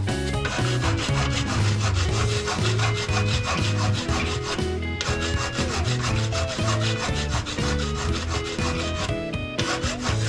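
Background music with steady bass notes and a quick, even rhythm.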